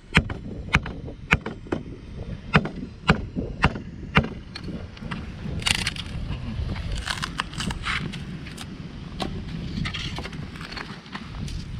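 Dry driftwood branch being struck to break it up for firewood: about eight sharp knocks in the first four seconds, roughly two a second, then crunching and snapping of twigs and beach gravel.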